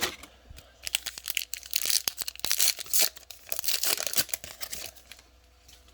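A trading card pack's foil wrapper being torn open and crinkled: a dense run of crackling and rustling that starts about a second in and stops about a second before the end.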